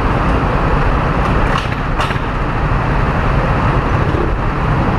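Go-kart engines idling together in the pit lane, a loud, steady rumble. Two sharp clicks come about a second and a half and two seconds in.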